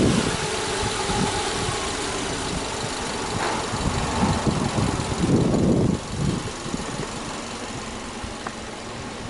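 Subaru Legacy Outback's EJ25 2.5-litre flat-four engine idling steadily, with a few low rumbles on the microphone about five seconds in; the engine sound drops in loudness about six seconds in.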